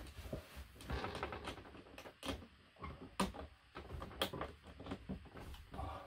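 Irregular small clicks, knocks and rattles of hands working the gas-strut piston and its bolt on an overhead cabinet's lift-up door, with the wooden door bumping now and then.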